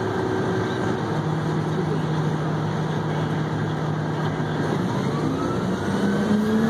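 Haul truck's diesel engine heard from inside the cab, running steadily, then rising in pitch about five seconds in as it picks up revs.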